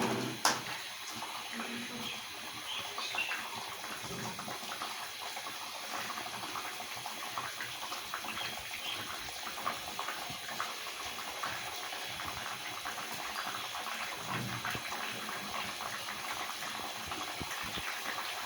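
Thin fish curry boiling in a pan after being poured onto hot tempered oil, a steady bubbling and crackling, with a louder splash and sizzle right at the start.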